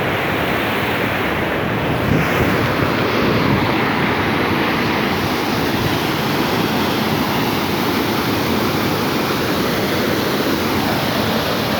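Waterfall's water rushing steadily and loudly, an unbroken wash of noise.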